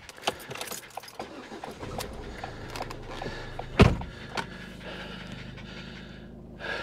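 Keys rattling in the ignition of a Ford car, then the engine starts about two seconds in and settles to a steady idle. One loud thump comes just before four seconds.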